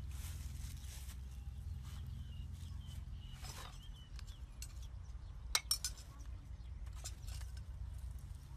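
A spoon clinking against a small ceramic bowl, a quick cluster of sharp clinks about five and a half seconds in, with a few fainter taps elsewhere, over a steady low rumble.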